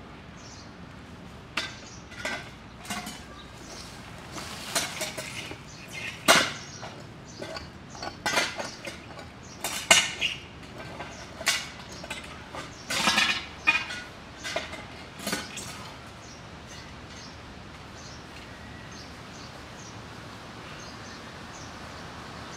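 Irregular sharp metal clinks and short scrapes from hand tools working at a fence line, about a dozen spread over the first fifteen seconds or so, then stopping.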